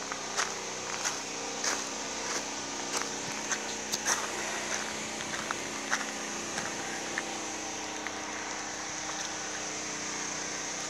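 Footsteps on a gravel lane at a steady walking pace, about one and a half steps a second, stopping about seven seconds in. Under them runs a steady mechanical hum.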